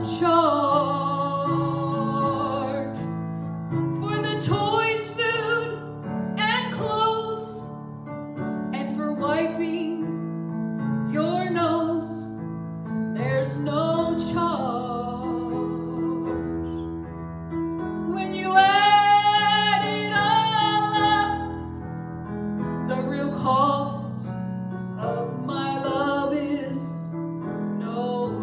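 A woman singing a slow song with vibrato on held notes, over piano accompaniment.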